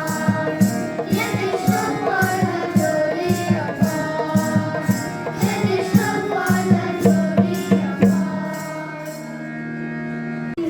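Indian devotional-style music: a quick hand-drum beat with jingles under a melody. The drumming stops about eight seconds in, and a held chord rings on and cuts off just before the end.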